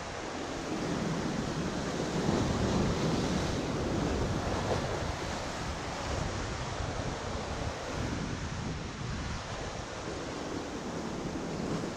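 Sea swell breaking and washing over shore rocks, a steady rush of surf that swells loudest about two to three seconds in, with wind buffeting the microphone.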